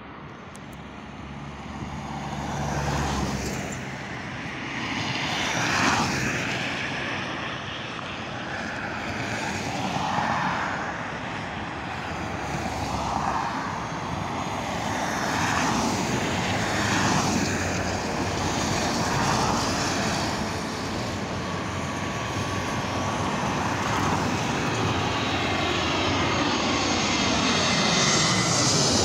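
Twin-engine jet airliner on landing approach with its gear down. Its rushing engine noise swells and sweeps as it draws closer and is loudest as it passes low overhead near the end, with a faint steady whine in the second half.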